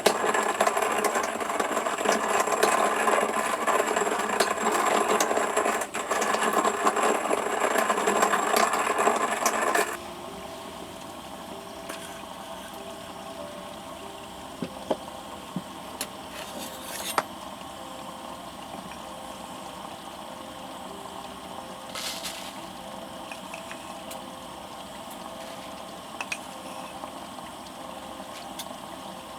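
Coffee beans being ground in a hand coffee mill, a dense grinding rattle with a brief pause partway through, that stops abruptly about ten seconds in. Soft background music with occasional small clicks follows.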